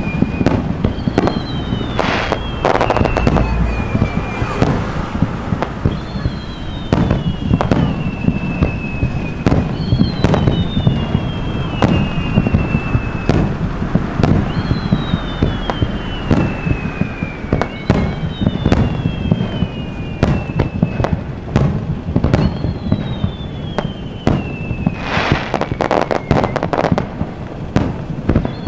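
Aerial fireworks shells bursting one after another, sharp bangs over a rolling low rumble with crackle. A high, falling whistle-like tone sweeps down about every four seconds over the bursts.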